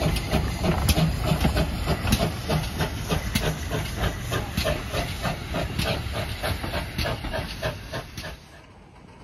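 GWR 5700-class pannier tank steam locomotive 7714 pulling away with its train, chuffing steadily at about two to three beats a second over a hiss of steam. The sound drops off suddenly near the end.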